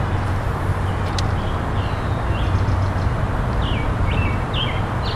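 A bird giving a series of short, falling chirps in the second half, over a steady low rumbling noise, with a single sharp click about a second in.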